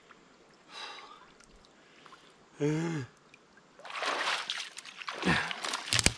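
A man's heavy breath and a short groan, then water splashing and sloshing as he wades out of a river in boots and climbs onto the bank, with a few sharp knocks near the end.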